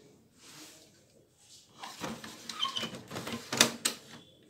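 Plastic scraping and clicking as the drum unit of a Kyocera TASKalfa 1800 copier is slid out of the machine. The handling starts about two seconds in and ends with two sharp clicks.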